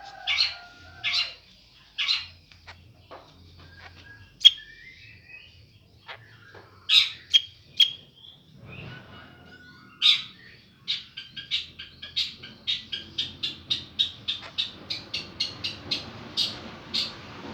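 White-rumped shama (murai batu) giving short, sharp clicking calls, scattered at first with a few short whistled notes, then a quick, even run of about three calls a second from a little past the middle.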